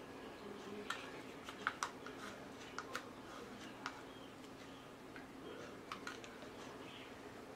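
A scattering of light clicks and taps from small objects being handled, about ten in all, bunched in the first few seconds with a pair near six seconds, over a faint steady hum.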